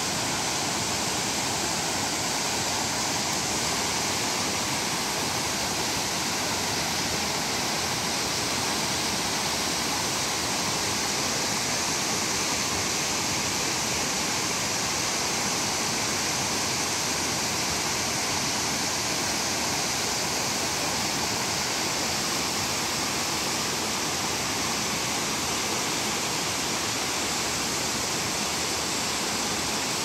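A waterfall and a creek tumbling over boulders in white-water cascades: a steady, unbroken rush of water.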